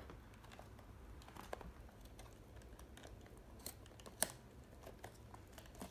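Fingers picking and tapping at the flap of a small cardboard card box that is hard to open: faint scattered clicks and scrapes, with one sharper click about four seconds in.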